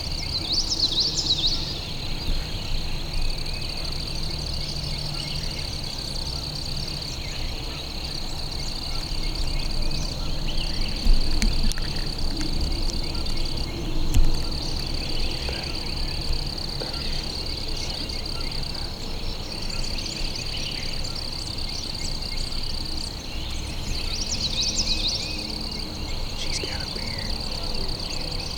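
A steady, high-pitched outdoor chorus of calling insects and frogs, with a songbird singing briefly near the start and again near the end, over a low rumble. Two short knocks stand out about halfway through.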